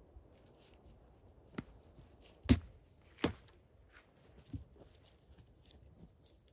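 Four separate sharp knocks over faint rustling and crackling, the loudest about two and a half seconds in.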